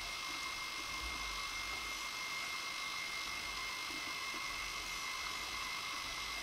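Steady hiss with a thin, constant high whine and a faint low rumble: the self-noise of an underwater survey camera recording inside its housing.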